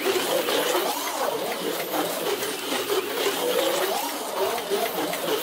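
HO slot car (Viper V1 chassis with a 2.5-ohm outlaw armature motor) running laps at speed. Its small electric motor whines, the pitch rising and falling again and again as it speeds up and slows down around the track, over a steady clatter of the car on the track.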